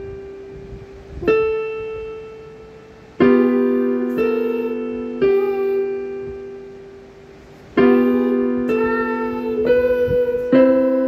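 Piano played slowly: a chord is struck every second or so, about eight in all, and each is left to ring and fade.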